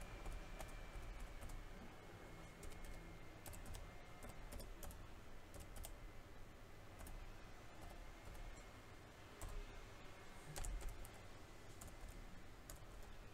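Laptop keyboard keys pressed one at a time, faint scattered clicks as each key is tested. A soft knock comes about three-quarters of the way through.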